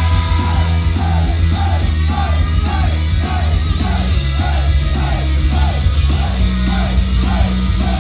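Loud live rock-style idol pop music played through a club PA, with heavy bass and a short phrase repeating about twice a second, and shouting over it.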